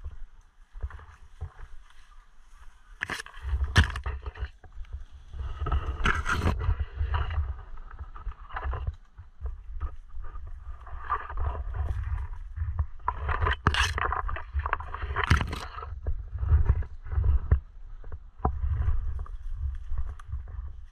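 Footsteps along a woodland dirt path and leaves and branches brushing against clothing and a body-worn action camera, with a low rumble from the camera jostling and a few sharp snaps or knocks.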